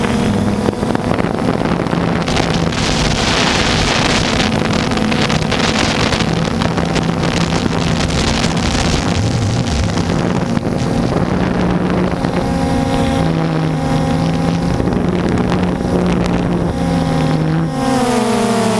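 A DJI Phantom quadcopter's electric motors and propellers buzzing in flight, the pitch shifting in small steps as the motors adjust, then wavering and gliding near the end as the craft manoeuvres. Wind buffets the microphone in gusts during the first half.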